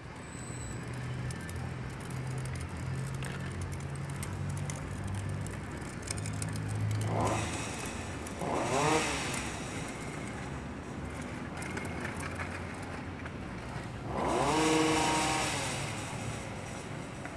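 Motor vehicle engines: a low steady engine hum, then two vehicles going by with engine pitch rising and falling, about seven seconds in and again about fourteen seconds in.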